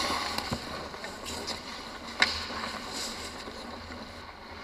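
Hockey skates scraping and carving on rink ice during play, with scattered clicks and one sharp crack about two seconds in.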